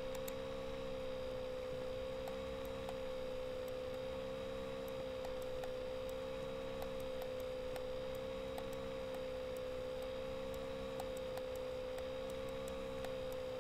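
A steady electrical hum at one constant pitch, with a few faint scattered ticks.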